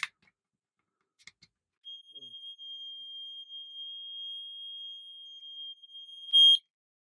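A plastic click as the case is pried, then the FireAngel smoke alarm's piezo sounder sets off a steady, piercing, high-pitched tone, triggered by something pressed as the case came apart. The tone swells much louder just before it cuts off suddenly near the end.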